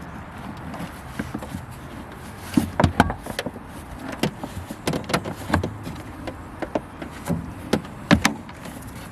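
Irregular clicks and knocks of trunk trim pieces being worked loose and removed by hand in a car trunk, with a loud cluster about three seconds in and another sharp knock near the end.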